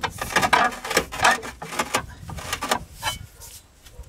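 Ratchet strap being cranked, its ratchet rasping and clicking with each pull of the handle: about six strokes in the first three seconds, then it stops. The strap is under load, pulling a track loader's drive table forward.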